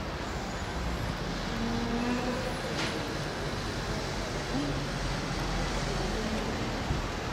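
Steady outdoor background noise like distant road traffic, with faint voices in the distance.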